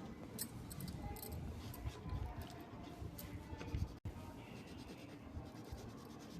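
Faint scratching of a drawing tool stroking across paper: many short strokes in an irregular run, with a low background rumble.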